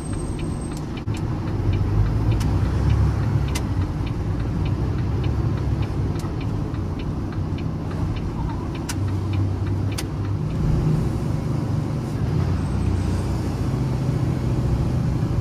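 Volvo FE 320 truck's diesel engine pulling away from a junction and driving on, heard from inside the cab. The engine rumble swells about a second in and again midway. A regular light ticking of the indicator is heard in the first couple of seconds.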